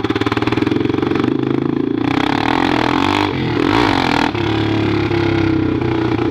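Honda NX Falcon's 400 cc air-cooled single-cylinder engine running loud through an open pipe with no muffler, a rapid even exhaust beat while riding. About two seconds in the sound turns rougher and brighter for a couple of seconds, then settles back to a steady run.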